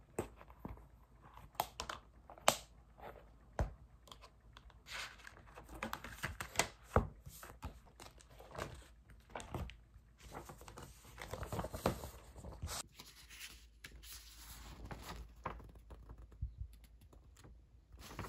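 Study materials being handled at a wooden desk: printed paper sheets rustling and being shuffled and laid down, with scattered small taps and clicks of items set on the desk.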